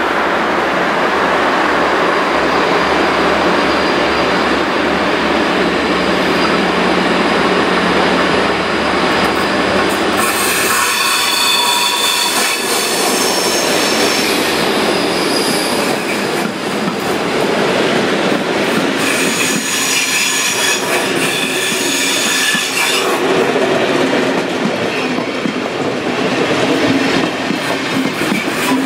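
Class 229 diesel-hydraulic locomotive running as it approaches and passes at the head of a passenger train, then the coaches rolling by, their wheels squealing in high whining tones from about ten seconds in and again near twenty seconds.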